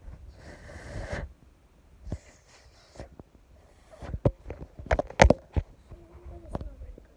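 Phone handling noise: a brief rustle, then a scatter of sharp taps and knocks as the phone is moved about by hand.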